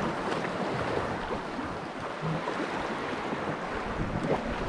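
Sea waves washing in steadily, with wind buffeting the microphone.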